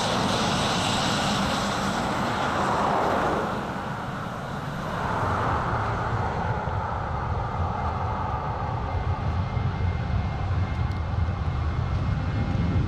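Jet airliner engine noise. A loud rushing jet sound fills the first few seconds, then dips briefly. After that come the steady low rumble and whine of a Boeing 737-900ER's CFM56-7B turbofans on the runway, growing slightly louder toward the end.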